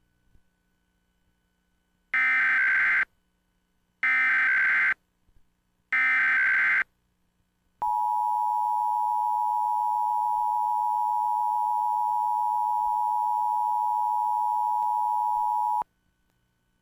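Emergency Alert System tones: three short bursts of SAME header data, each under a second long and about two seconds apart, then the two-tone attention signal (853 and 960 Hz) held steady for about eight seconds and cut off sharply.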